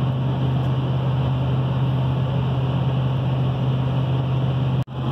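Pickup truck cruising at highway speed, heard from inside the cab: a steady engine drone over tyre and road noise. It breaks off for an instant near the end.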